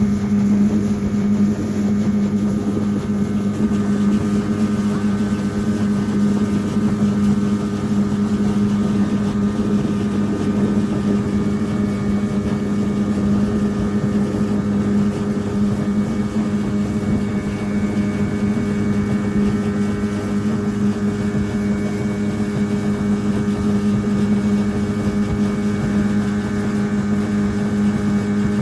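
Motorboat engine running at a steady speed, a constant drone with a hiss of water and wind.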